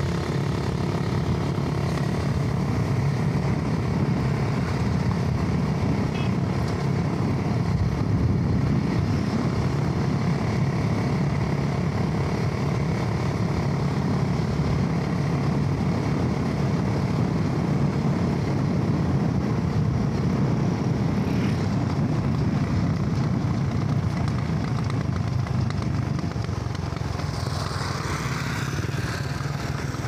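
Motorcycle engine running steadily while riding, with wind and road noise rushing over the microphone.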